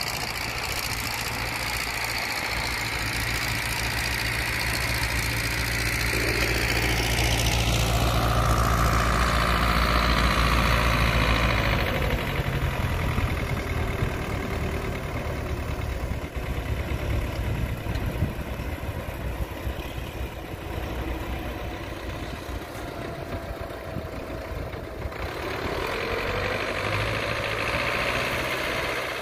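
Belarus MTZ tractor's diesel engine running as it tows a big trailer past, swelling to a peak about a third of the way in and then fading, before another tractor's engine swells in near the end.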